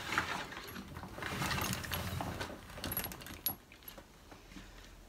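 An AP Inspiration XPD rebreather being turned round on a table by hand: scraping and rustling of the unit and its hoses, with light metallic clinks and knocks from its clips and fittings. The handling settles about three and a half seconds in.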